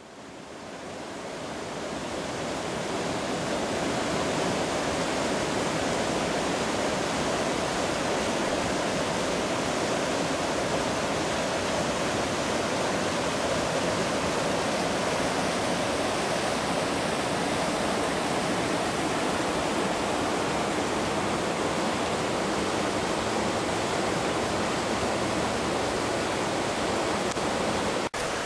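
Rushing water of river rapids: a steady, even rush of the current over rocks, fading in over the first few seconds, broken briefly near the end.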